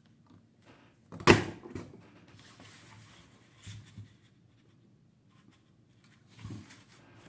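Craft tools and paper being handled on a table: one sharp knock about a second in, then faint paper rustling and a few light taps.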